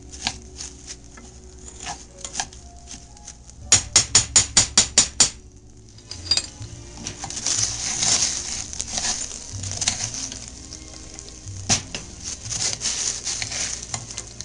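Rice toasting in hot oil in a metal pot, sizzling while a metal spoon stirs and scrapes through it: the browning stage of Mexican rice. About four seconds in comes a quick run of about eight sharp knocks of the spoon against the pot. After that the sizzling turns steady, with more scrapes.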